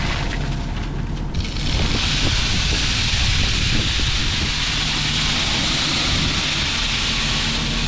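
Heavy diesel engine, most likely the excavator's, running steadily with a constant hiss that grows stronger about two seconds in.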